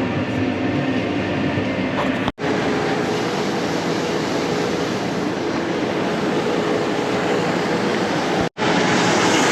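Heavy farm machinery running steadily, a constant mechanical drone with a few faint steady tones, cut off abruptly for an instant twice, about two seconds in and near the end.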